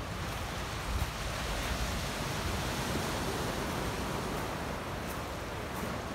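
Steady wash of small waves on a rocky, pebbly shore, with wind rumbling on the microphone.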